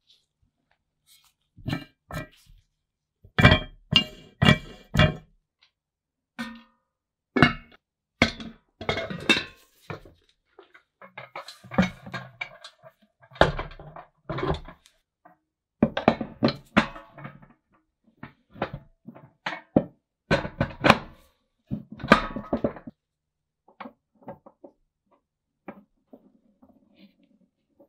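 Cast-iron gear, shaft and crank parts of an antique Frost King hand-crank ice cream maker being fitted together: irregular clinks and knocks of metal on metal, some ringing briefly. The knocks die away to faint handling sounds for the last few seconds.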